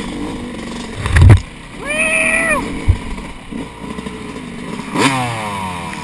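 Dirt bike engine running at low speed, with a heavy thump about a second in. Near the end a throttle blip sends the revs up, and they fall away again.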